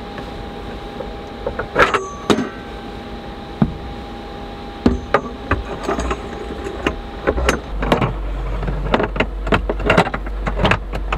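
Knocks, clicks and rattles of a Volkswagen Westfalia camper's removable table being unhooked, lifted and set into its mount over the couch. A few separate knocks come first, then a quick run of them near the end as the table is fitted in place.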